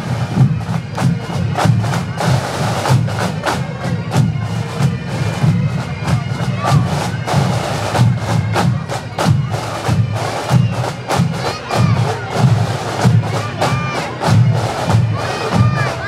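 Massed pipe bands playing a march on the move: Highland bagpipes over a steady, driving beat of the bands' drums.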